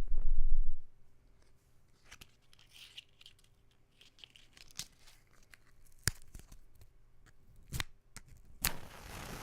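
Matches being struck: a loud low thump at the start, then scratchy rasps, a few sharp snaps, and near the end a second-long hiss as a match flares.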